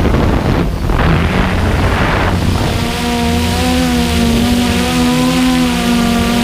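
Hubsan X4 Pro quadcopter flying with rough wind noise on the microphone. From about three seconds in, its propellers give a steady hum whose pitch wavers slightly as the motor speeds shift.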